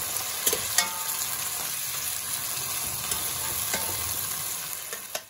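Chopped tomatoes sizzling in hot oil in a kadhai with onion, ginger and garlic as they are stirred, with a few sharp clicks of the utensil against the pan.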